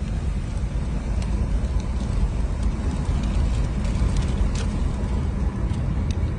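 Steady low rumble of a car driving, the noise of tyres, engine and wind heard from inside, with a few faint ticks scattered through it.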